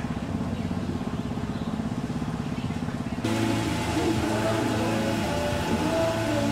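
A small petrol engine idling with a steady low pulse. About three seconds in the sound cuts abruptly to a louder take of running engine, with a faint voice-like sound over it.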